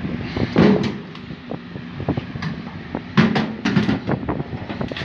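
Metal toolbox knocking and rattling as it is handled on a wooden floor: irregular knocks, with louder clatters about half a second in and again about three seconds in.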